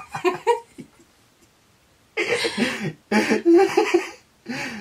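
Two people laughing: a short burst at the start, then after a quiet second, several long bouts of loud laughter through the second half.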